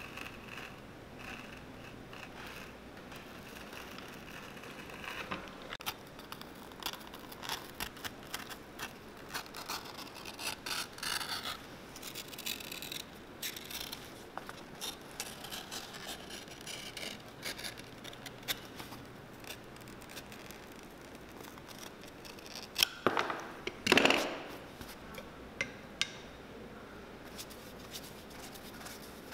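Utility knife cutting and trimming the edge of a leather sole blank, a string of short scraping cuts. Near the end come two louder knocks, the second the loudest.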